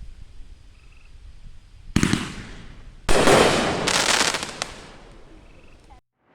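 Raccoon Ghost Spirit 500g fireworks cake firing: a single sharp report about two seconds in, then a louder volley about a second later with dense crackling that fades over the next couple of seconds. The sound cuts off abruptly near the end.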